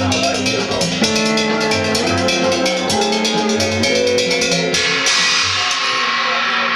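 Live improvised percussion music. Sustained pitched notes play over a fast, even ticking and a regular low drum pulse. About five seconds in the ticking stops and a bright metallic wash from a small gong struck with a stick comes in.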